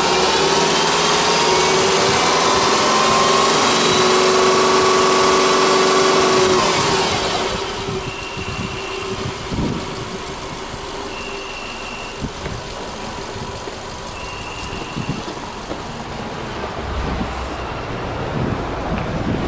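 Subaru Legacy Touring Wagon 2.5i's EJ25 flat-four engine revved with no load, its speed rising slowly and held high, then dropping back to a steady idle about seven seconds in. A short high beep sounds about every three seconds during the idle.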